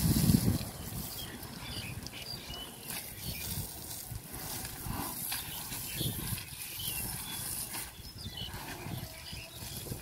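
Water from a garden hose spraying onto an elephant's hide, a steady hiss, with a brief loud low rumble right at the start and scattered faint chirps.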